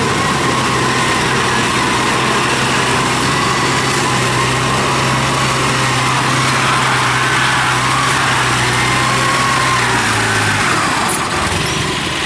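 Yanmar combine harvester's diesel engine running steadily under load, with a wavering whine from its drive over the engine note. The engine note drops away about ten and a half seconds in.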